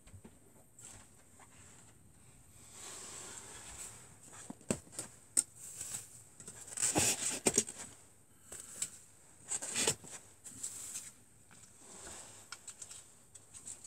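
Wooden arrows being pulled out of a foam block target: scraping and squeaking as the shafts come free, with rustles and clicks of handling, loudest in bursts about seven and ten seconds in.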